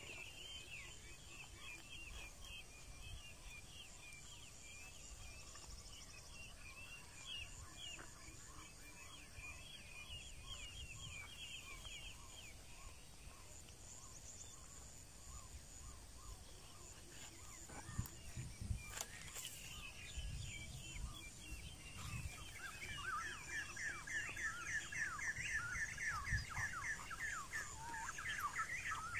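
Faint chirping of small birds: rapid runs of short falling chirps that grow louder and denser in the last few seconds. A few soft knocks come about two-thirds of the way through.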